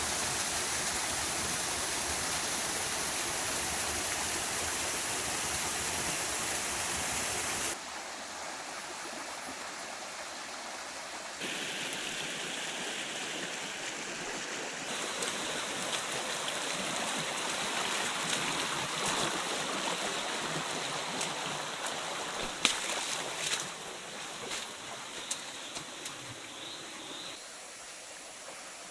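Small waterfall pouring over boulders, a loud steady rush; about eight seconds in it cuts to the quieter running water of a shallow jungle stream. Near the end a few sharp splashes, as of people wading through the creek.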